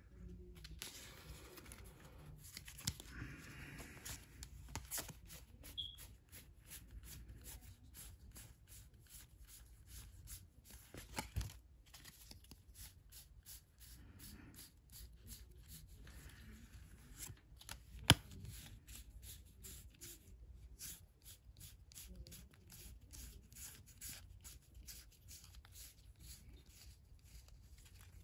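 Pokémon trading cards being flipped through one by one in the hand, a steady patter of soft card clicks and slides. One sharp click about two-thirds of the way through is louder than the rest.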